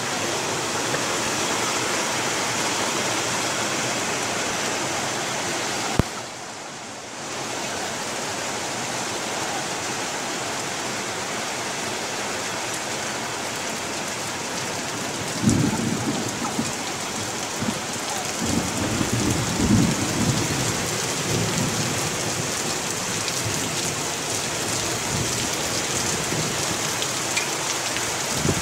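Heavy downpour hissing steadily over the yard, with a single sharp click about six seconds in followed by a brief dip in the rain sound. Low rumbles of thunder come in about halfway through and swell again a few seconds later.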